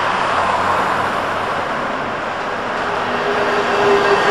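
Dual-mode bus passing close by on the street: a steady haze of tyre and road noise, with a steady tone coming in about three seconds in and growing loudest near the end as the bus goes past.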